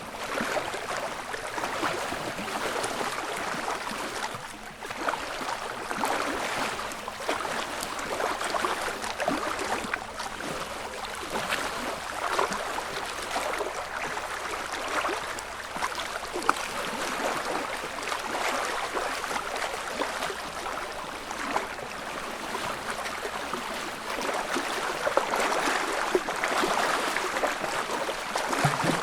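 Small lake ripples lapping at the shoreline in calm early-morning conditions: a continuous soft wash of water with many small splashes and gentle swells.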